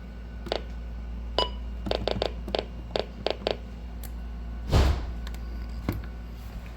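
Weather radios being switched on and handled: a string of button clicks, one with a brief beep about a second and a half in, and a heavier thump near the end, over a steady low hum.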